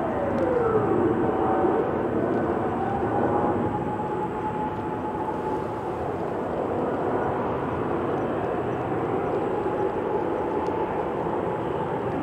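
Distant jet engine rumble of a climbing Boeing 767-300ER's General Electric CF6 turbofans, a steady even roar. In the first couple of seconds a tone slides down in pitch and then climbs back up and holds.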